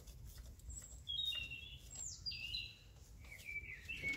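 A songbird singing in the background: a few short high whistled notes, one sliding down in pitch about halfway through, with faint light ticks.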